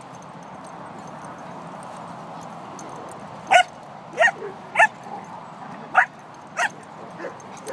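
A dog barking during rough play with other dogs: five short, sharp barks starting about three and a half seconds in, three close together, then two more a little later.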